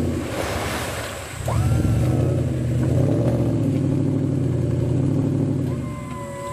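Off-road 4x4 vehicle's engine revving under load. The engine note drops briefly about a second in, then comes back up and holds steady before easing off near the end.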